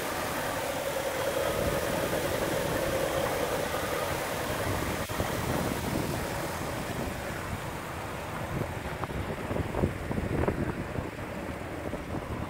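A 1970 Chevelle's 350 small-block V8 idling steadily with the hood up. A few short thumps come near the end.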